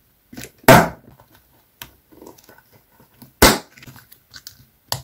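Stiff clear plastic binder pocket crackling as it is handled: two loud crackles, one under a second in and one past three seconds, with faint rustles and light taps between and a short sharp crackle near the end.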